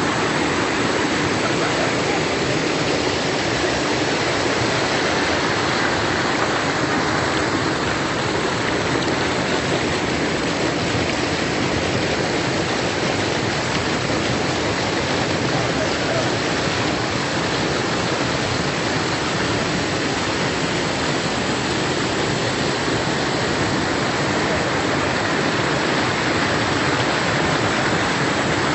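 Steady rush of flowing river water, an even hiss without a break.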